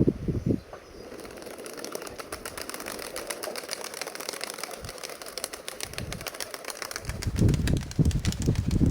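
Nikolaev pigeons' wings flapping, a fast run of clicks. Wind buffeting the microphone at the start and again from about seven seconds in.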